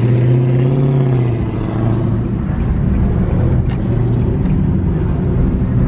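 A car engine running loudly and steadily, its pitch rising slightly and settling back about a second in.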